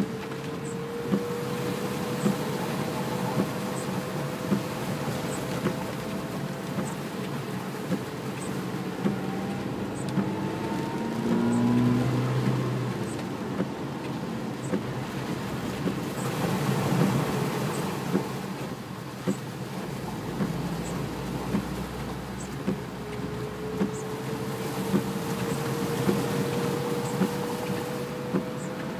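Suzuki Jimny heard from inside the cab while driving on wet roads in heavy rain: steady engine and road noise, with the engine note rising as it pulls through the gears. A regular tick about every second and a bit comes from the windscreen wipers.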